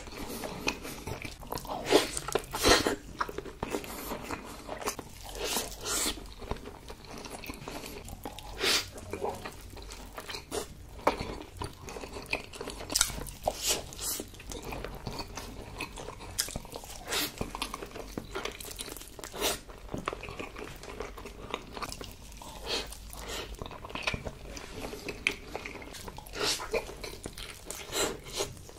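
Close-miked biting and chewing of salmon nigiri sushi: a run of short, sharp mouth clicks and smacks at uneven intervals, a few each second.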